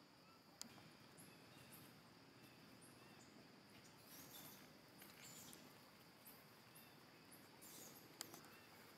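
Near silence: faint outdoor background with a few small sharp clicks, one about half a second in and a louder one near the end.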